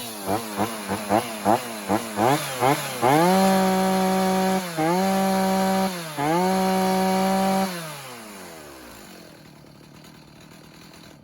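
Stihl MS290 two-stroke chainsaw blipped quickly several times, then held at full throttle with two brief dips, at about 11,500 rpm: roughly 1,000 under its 12,500 maximum, a safe high-speed setting. After that the throttle is released and the engine winds down and fades.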